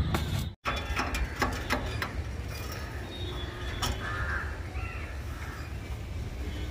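Crows cawing over a steady low hum, with a few sharp knocks in the first two seconds and another near four seconds.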